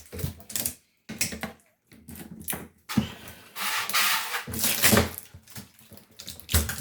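Packing tape being peeled and ripped off the inside of a new compact refrigerator, in several crackling pulls, the longest about three seconds in.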